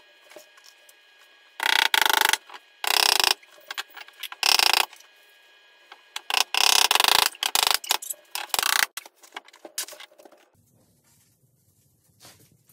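Power drill driving screws through panelling into a wooden frame: six loud runs of half a second to a second each, in two groups of three.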